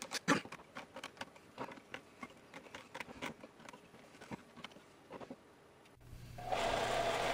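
Metal bar clamps clicking and knocking as their screw handles are turned down on a glued-up stack of wood strips, with one sharper knock near the start. Near the end a belt sander's motor starts and runs with a steady hum.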